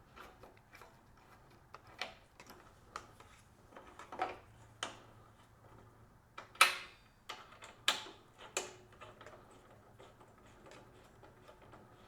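Irregular small metal clicks and taps of an Allen key turning a bolt into a headlight guard mount, with a few sharper clicks about halfway through.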